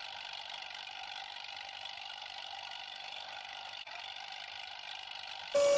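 Bulldozer engine running with a steady drone. Near the end a much louder tone cuts in and falls in pitch.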